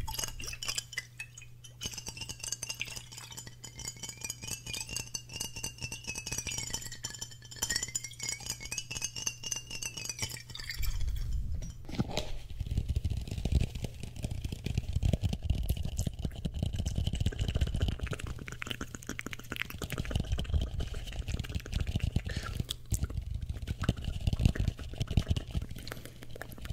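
Fingers tapping and clinking on a glass bottle holding liquid, with a thin ringing tone that wavers in pitch. About eleven seconds in this gives way to duller, deeper tapping and rubbing on a bowl held against the microphone.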